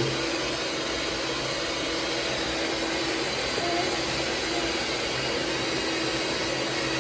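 Steady whirring noise of a running household appliance motor, with a constant low hum underneath.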